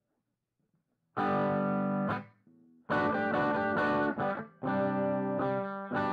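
Electric guitar played through the Big Red dual germanium boost/overdrive pedal into a tube amp, giving an overdriven rock tone. Chords are struck about a second in, then again three more times after a short pause, each left to ring.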